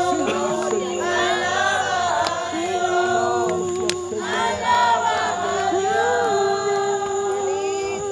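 Several people praying and praising aloud at once in Spanish. Their voices overlap, and some hold drawn-out, chant-like tones.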